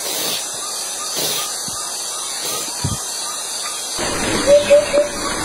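Steady hiss of outdoor background noise, with three short chirps in quick succession about four and a half seconds in.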